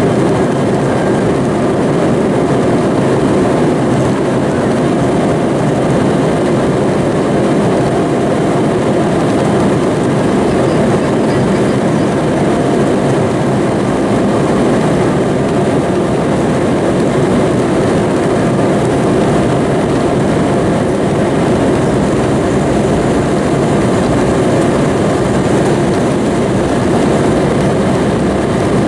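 Cabin noise of an Embraer E-175's GE CF34-8E turbofans at taxi power with the landing gear rolling along the taxiway: a steady rumble with a faint steady whine.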